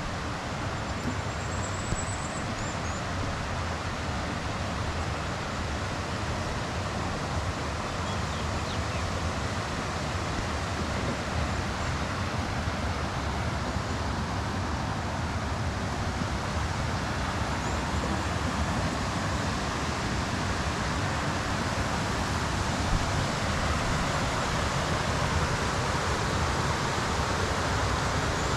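Steady rushing of river water, growing slightly louder over the stretch.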